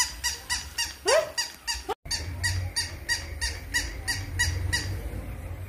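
Battery-operated pink plush toy puppy giving a rapid, regular run of short electronic barks, about three to four a second, over a low motor hum. A short rising call cuts in about a second in.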